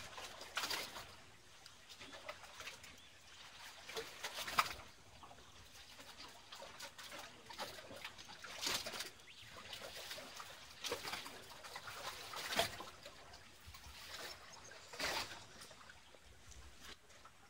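Small waves lapping and sloshing against a concrete breakwater, in irregular short splashes a few seconds apart.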